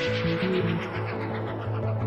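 Background music: held notes over a low bass line.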